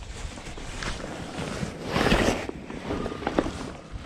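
Outdoor street noise with wind on the microphone: a steady rushing hiss that swells into a loud rush about two seconds in, then a few sharp clicks near the end.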